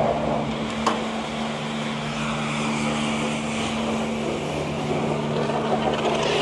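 Self-service car wash pump running with a steady mechanical hum, switched on by the tokens just fed into the coin machine. One short click about a second in.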